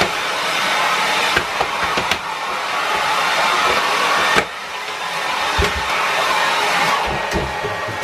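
Hand-held electric hair dryer blowing with a steady hiss. The hiss drops suddenly about halfway through and builds back up. A few knocks and bumps sound as the dryer is grappled over.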